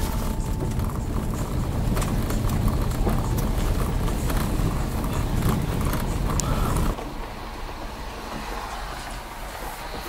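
Car cabin rumble while driving, with scattered ticks and knocks. About seven seconds in it cuts off suddenly to a much quieter, steady hiss.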